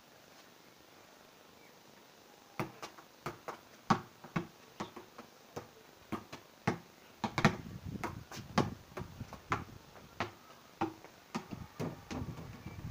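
Ball keep-ups: a basketball kicked repeatedly off the foot, a run of irregular thuds a few times a second, starting about two and a half seconds in.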